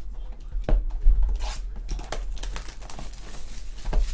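Foil trading-card pack wrapper crinkling and rustling as it is handled, with a sharp knock about two-thirds of a second in and another near the end.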